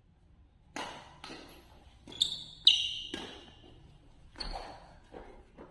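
Badminton doubles rally: a string of sharp racket-on-shuttlecock hits and quick footfalls, echoing in a large hall, the loudest a little under three seconds in. Short high squeaks, typical of court shoes on the floor, come between the hits.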